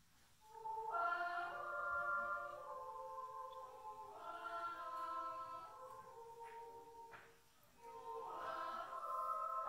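Children's yodel choir singing a cappella in several parts, with long held notes; one phrase begins about half a second in, breaks off briefly near the end, and a new phrase starts.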